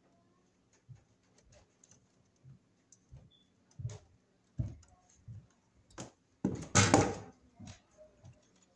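Scattered small clicks, taps and rustles of hands handling stiff old cloth-and-rubber-insulated wires and a twist-on wire nut inside a metal breaker panel, with a louder rustling burst about two-thirds of the way through.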